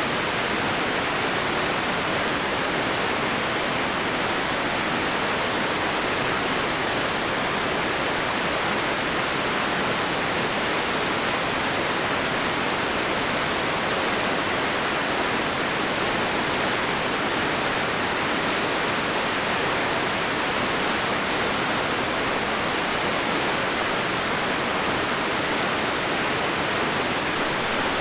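Rushing water of a mountain river pouring over a waterfall: a steady, even rush that does not change.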